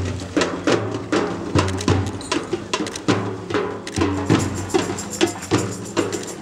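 Drumming: hand drums and a large drum beaten in a fast, steady rhythm, many strikes leaving a short, ringing low tone.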